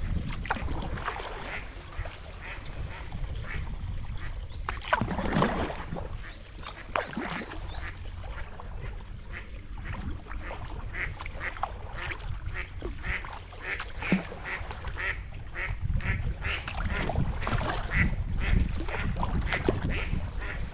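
Ducks quacking again and again in short, irregular calls, over a steady low rumble of wind on the microphone. There is a louder whoosh about five seconds in.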